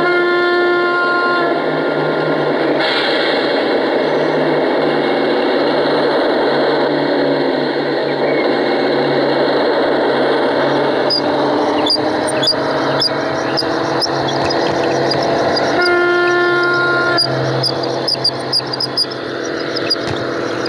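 Garden-railway model locomotive sounding its horn, a steady pitched tone that stops about a second and a half in and sounds again briefly about sixteen seconds in, over the steady running noise of the train. A series of light ticks comes in the last few seconds.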